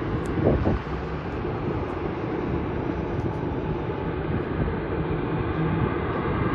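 Boeing 787-8 jet engines running at low taxi power: a steady rumble with a faint whine above it.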